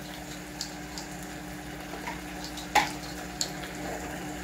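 Stew simmering quietly in a wok over a steady low hum, with a few short knocks of a wooden spoon against the wok, the loudest about three seconds in.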